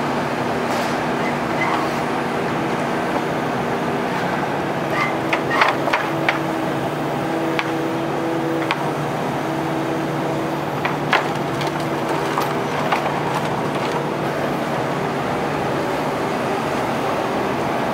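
Volvo EC380HR high-reach demolition excavator running steadily, its engine and hydraulics droning. Scattered sharp knocks and cracks sound over it, a cluster about five to six seconds in and another near eleven seconds.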